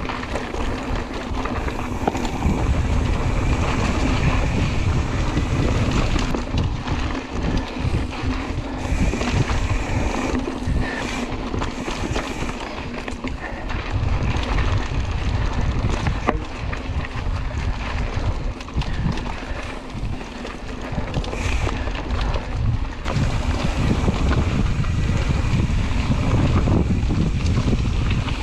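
Wind buffeting the microphone of a camera on a moving mountain bike, with knocks and rattles from the bike over the dirt trail. It eases briefly twice.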